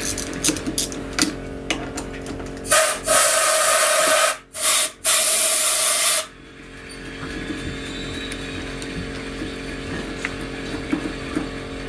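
A few light clicks of a socket tool on the clutch nut. Then three loud bursts of a hissing pneumatic ratchet spinning the freed centrifugal clutch nut off the crankshaft: a long one, a short one, then one of about a second.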